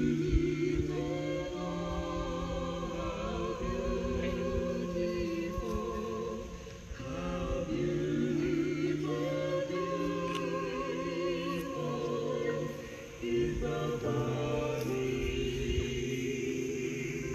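A choir singing slow, sustained phrases with vibrato over held low notes, pausing briefly about six and a half and thirteen seconds in.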